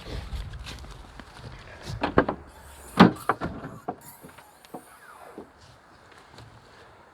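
Irregular knocks, clicks and clatter of camping gear being handled, the loudest knock about three seconds in, with wind rumbling on the microphone during the first couple of seconds.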